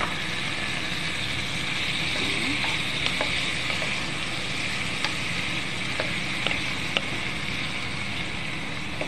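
Chicken pieces sizzling in hot oil in a nonstick frying pan: a steady frying hiss with a few sharp ticks scattered through it.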